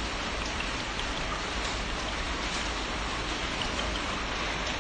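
Steady hiss of noise with a few faint scattered ticks.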